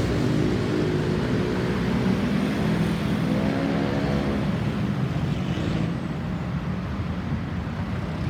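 Road traffic: vehicle engines running and passing, one engine's pitch rising and falling a little around the middle.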